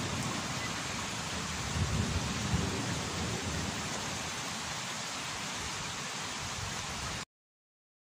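Steady rain hiss with a low roll of thunder about two seconds in. It cuts off suddenly near the end.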